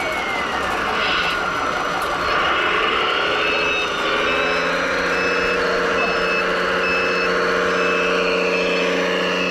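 Radio-controlled model trucks and machines working: an electric motor whine glides down and back up in pitch. About four seconds in, a steady engine-like hum begins, along with a reversing beeper sounding a short high beep about every 0.7 s.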